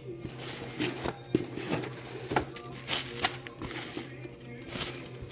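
Packaging rustling and crinkling, with irregular small clicks and taps as individually wrapped cookie cutters and clay stamps are unwrapped and handled.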